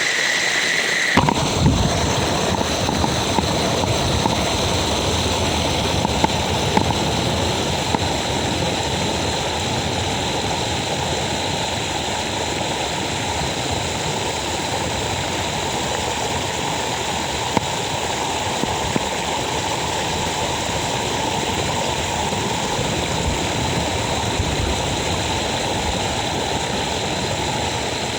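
Stream water rushing and gurgling steadily. The full sound of the water comes in about a second in, with a few light clicks over it.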